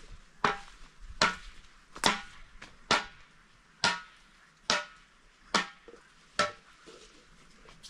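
Eight sharp, evenly spaced blows, a little under one a second, each with a short ring, like rhythmic chopping or pounding.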